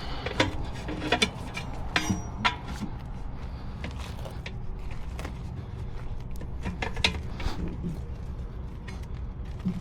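Scattered metallic clicks and knocks of tire tools working on a semi-truck wheel, over a steady low hum.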